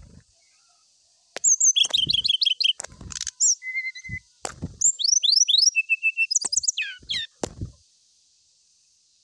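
Brown-chested jungle flycatcher singing a fast, varied song of quick chirps, rising whistled sweeps and a briefly held whistle, starting about a second and a half in and stopping near the seventh second. A few sharp knocks of the bird landing on its cage perches come between the phrases.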